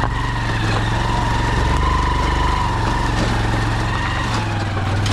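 Motorcycle engine running steadily at low revs, a low hum with a thin whine above it.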